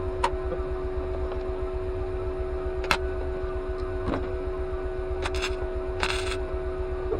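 A steady machine hum with a fast low pulsing, broken by a few scattered sharp clicks and knocks and one short rasp near the end.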